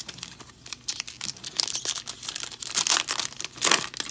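Baseball card pack wrapper being torn open and crinkled in the hands: a run of crackling, with the loudest crackle about three and a half seconds in.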